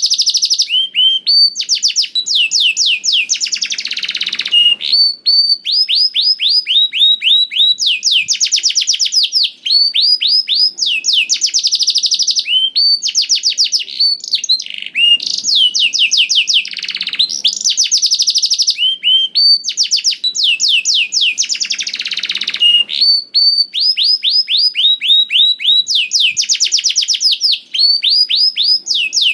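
Domestic canary singing vigorously and without a break: long, fast trills of repeated sweeping notes, with short pauses between phrases and the same phrases coming round again.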